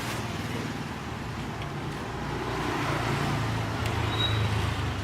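Typical GC0303CX walking-foot industrial sewing machine running steadily to wind a bobbin, a mechanical hum that grows a little louder about three seconds in.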